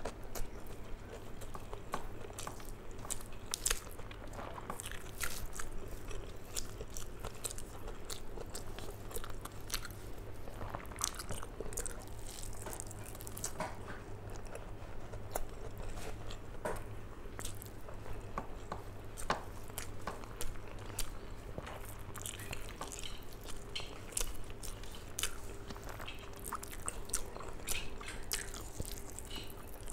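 Close-miked mouth sounds of a person chewing hand-fed mouthfuls of rice, with many short, sharp, wet clicks and smacks of the lips and tongue over a steady low hum.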